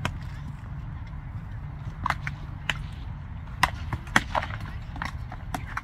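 Rattan weapons striking a shield and armour in armoured combat: about seven sharp, irregular knocks, the loudest two close together near the middle, over a steady low rumble.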